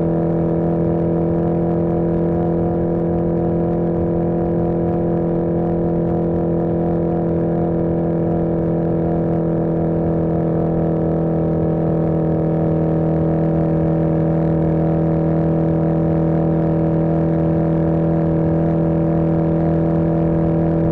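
1981 Yamaha XJ650 Maxim's air-cooled inline-four engine running at steady revs while riding along the highway, its pitch holding even throughout.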